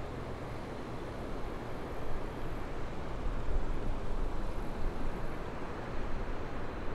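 Steady low rumbling outdoor noise with no distinct events, a little louder from about two seconds in.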